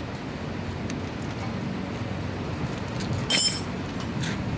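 A steel hand tool clinks once against metal with a short ring about three seconds in, over a steady low background rumble.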